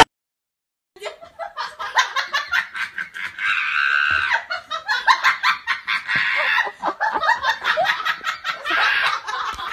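Laughter in quick, repeated bursts, starting about a second in after a moment of silence.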